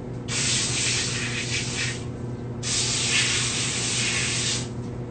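Commercial kitchen pre-rinse spray faucet spraying water as hands are rinsed under it, in two bursts of about two seconds each with a short break between.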